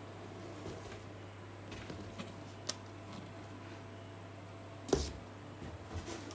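Cardboard boxes being handled: a helmet's retail box lifted out of a corrugated shipping carton, with scattered light taps and rustles and one louder knock about five seconds in, over a steady low hum.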